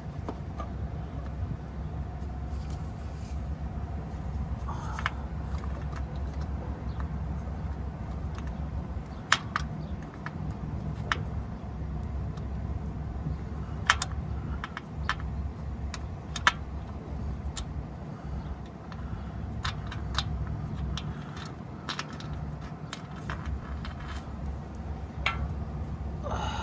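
Irregular sharp metallic clinks and taps of hand tools and parts during a starter replacement under a car, over a steady low rumble.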